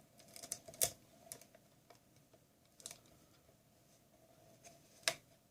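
Small clicks and scrapes of a credit card being worked under a tablet's glued-in battery to pry it loose: a cluster of ticks in the first second, a couple more about three seconds in, and one sharp click near the end.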